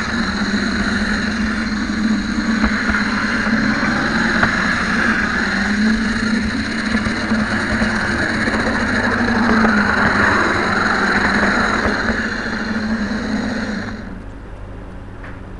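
HO scale model train running on its track, heard from a camera riding on board: a steady whir from the small electric motor and wheels that stops about fourteen seconds in, when the train comes to a halt.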